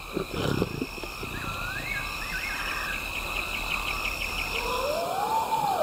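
Night ambience of insects chirring: a steady high trill with shorter chirps coming and going. A warbling whistle and a run of quick ticks come between about one and three seconds in. Near the end a single long call rises and then falls in pitch.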